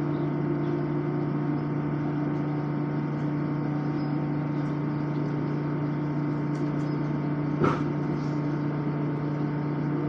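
Steady running noise inside a moving LIRR M7 electric multiple-unit car: a constant hum with steady tones under a wash of wheel-on-rail noise. A single sharp click or knock comes about three-quarters of the way through.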